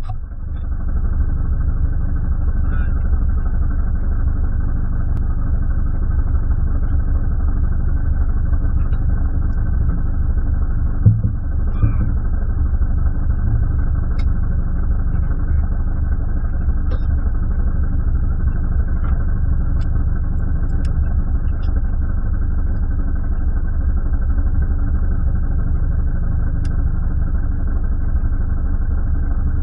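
Abarth 500 Assetto Corsa race car's turbocharged four-cylinder engine idling steadily, heard from inside the stripped, roll-caged cabin. A couple of light knocks come about eleven seconds in.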